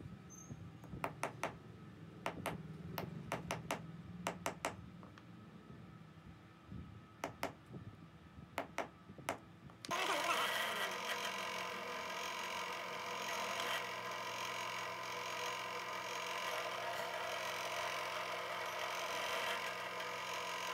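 A series of sharp, irregular taps over a faint low hum. About ten seconds in the sound cuts abruptly to a pillar drill press running steadily, with a hum of several steady tones, as a centre drill spots a hole in a steel block.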